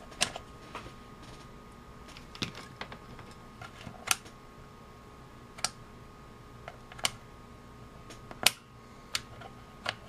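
Detent clicks of a ZT102 handheld multimeter's rotary function switch being turned by hand, about a dozen sharp clicks at uneven spacing.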